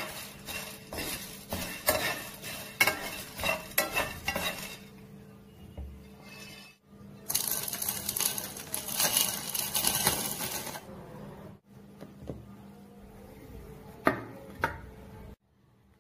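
Whole spices (bay leaves, coriander seeds, star anise, cinnamon) dropping and rattling into a dry pan, a quick run of small clicks and ticks. After a break, the spices are tipped into a bowl from about 7 to 11 seconds in, a dense patter of seeds hitting and sliding, with two light clinks near the end.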